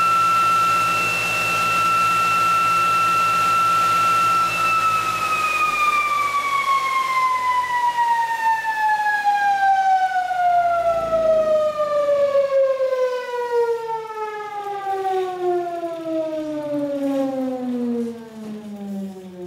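DC drive motor and ReGenX generator test rig running with a steady high whine, then winding down about four seconds in, its whine falling steadily in pitch as the machines coast to a slower speed.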